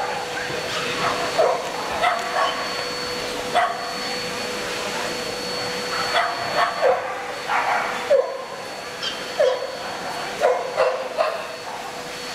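Dogs barking in short, irregular calls, a dozen or so, over the steady hum of a busy show hall.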